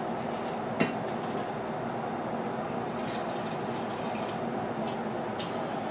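Turtle broth poured in a thin stream from a stainless steel bowl into a pot of gumbo, a steady trickling splash, with a single sharp click a little under a second in.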